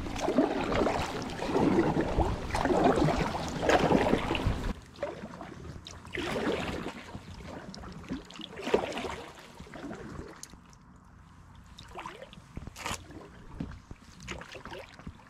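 Kayak paddle strokes splashing in the water, with water trickling off the blades. The strokes come about once a second and louder at first; after about five seconds the sound drops to separate splashes every couple of seconds.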